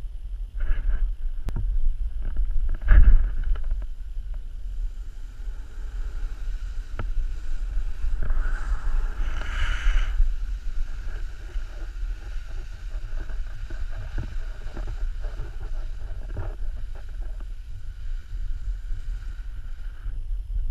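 Wind rushing over the microphone as a snowboard rides through powder snow, a steady low rumble with the board's hiss and scrape in the snow. A loud jolt comes about three seconds in, and a louder rush of snow spray swells around a turn near the middle.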